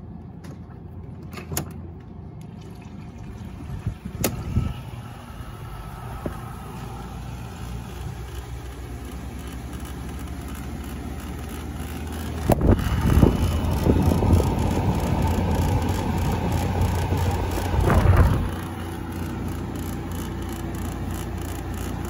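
hOmelabs 5,000 BTU window air conditioner switched on with its rotary control knob: a few clicks, then the unit running with a low steady hum. It grows louder past the middle and drops back near the end.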